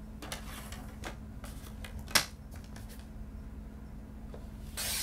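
Sliding-blade paper trimmer in use on cardstock: light handling clicks, one sharp click about two seconds in, then a short swish near the end as the blade slides through the sheet.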